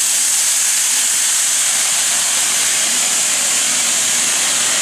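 Loud, steady hiss of steam escaping from the Gresley A4 Pacific steam locomotive Bittern while it stands in steam.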